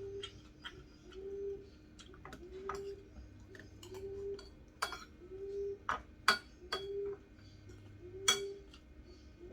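Cutlery clinking against a dish during a meal, sharp separate clinks with the loudest two in the second half. Behind them a short, low call repeats steadily about once a second.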